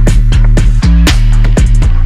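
Electronic music with a steady drum beat over sustained bass notes.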